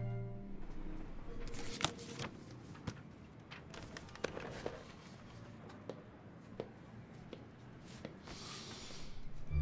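Quiet room tone with scattered faint clicks and light rustles, roughly one a second, and a soft hiss near the end.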